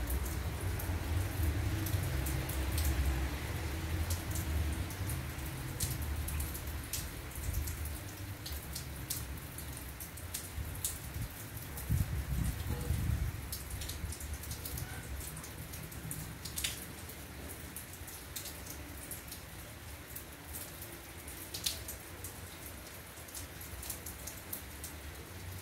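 Rain beginning to fall, with scattered single drops ticking sharply on nearby surfaces over a steady patter. A low rumble sits underneath during the first several seconds and again briefly about halfway through.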